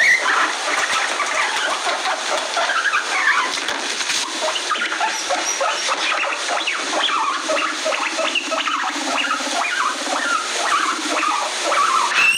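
Guinea pigs squeaking and chirping in many short, overlapping calls, with a low buzz underneath in the second half.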